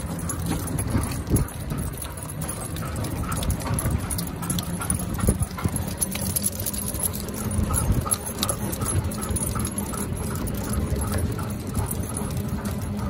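Two huskies running on leash beside a runner: a steady rhythm of footfalls on pavement, with collar tags and leash clips jingling.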